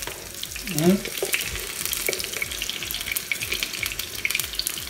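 Batter-coated wafer-sheet chebureki frying in hot oil in a pan: a steady sizzle full of small crackles. A short vocal sound about a second in.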